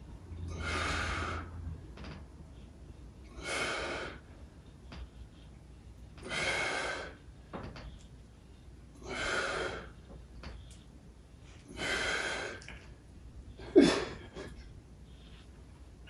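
A man's hard exhales, five of them about three seconds apart, the effort breathing of dumbbell repetitions. A single sharp knock about two seconds before the end.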